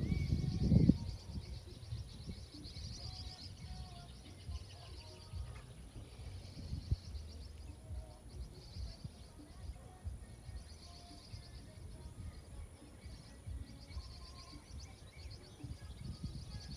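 Several birds singing and calling, short scattered notes over a high trilling chorus that comes and goes every second or two. A low rumble sits under it in the first second.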